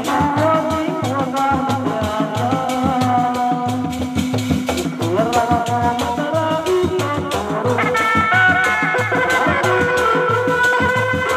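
Sundanese dog-dog frame drums beaten by hand in a quick, driving rhythm, with a high melody of long held notes that slide between pitches over them. The melody jumps higher about two-thirds of the way through.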